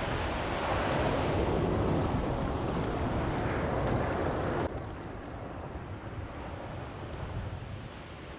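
Surf washing on a beach, with wind buffeting the microphone. About halfway through it drops abruptly to a quieter, steadier wash.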